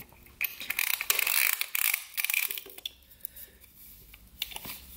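Ratchet-type piston ring compressor being tightened around a piston with a key, its pawl clicking in quick runs through the first half, then a few fainter clicks.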